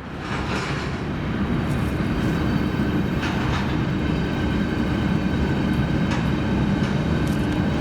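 A large vehicle passing close by with a loud, steady rumble that builds over the first second.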